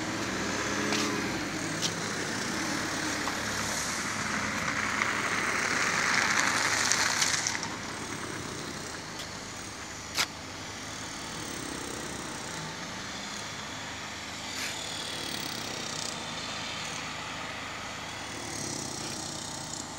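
Street traffic: a car passes close by, swelling to its loudest about six or seven seconds in and then falling away, with a single sharp knock a few seconds later.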